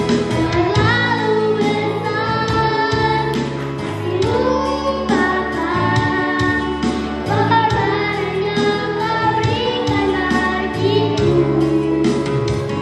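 A young girl singing an Indonesian Christian worship song into a microphone over a karaoke backing track with a steady beat.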